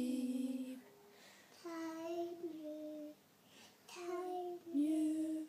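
A lullaby sung softly at bedtime: the last word, 'asleep', is held with a slight waver, then two short wordless sung phrases follow with quiet gaps between them.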